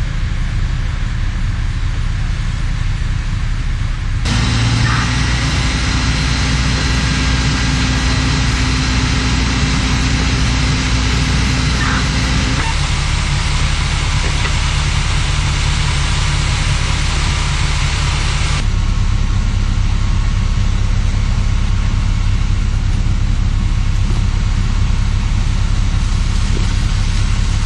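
Fire truck diesel engines running steadily, with a constant hiss of noise over them. The sound shifts abruptly about four, thirteen and nineteen seconds in.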